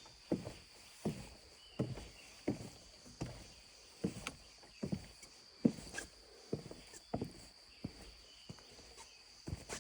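Footsteps walking at a steady pace, about one step every 0.7 seconds, with a faint steady high tone behind them.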